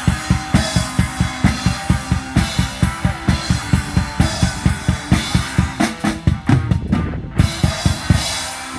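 Drum kit played to a steady beat of about four hits a second, bass drum prominent, breaking into a quick fill near the end before stopping.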